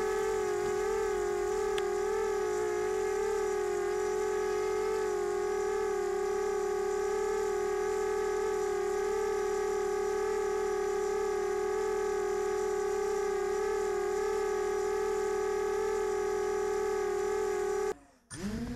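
Diatone 250 quadcopter's brushless motors and propellers hovering in GPS hold, heard through its onboard camera: a steady hum whose pitch wavers slightly. Near the end the sound cuts off briefly and a new motor whine starts, rising in pitch.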